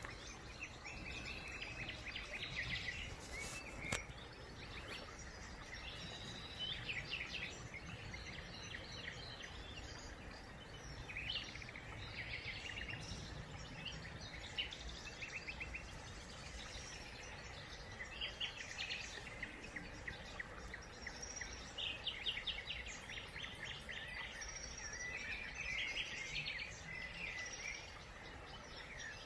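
Small songbirds chirping and singing in short, fast trills again and again, over a steady low outdoor background noise. A single sharp click about four seconds in.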